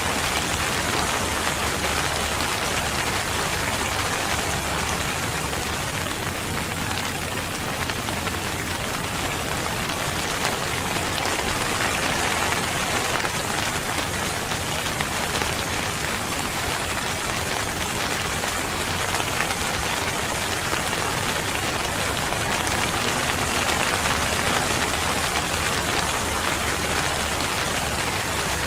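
Steady rain falling and pattering on a surface, an even hiss with no change in strength.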